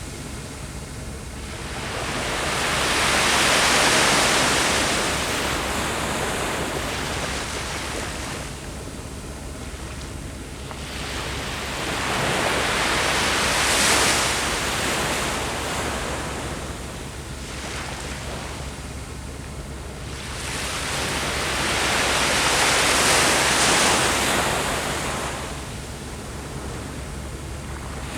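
Ocean waves breaking on a beach. Three waves wash in and draw back, about one every nine or ten seconds.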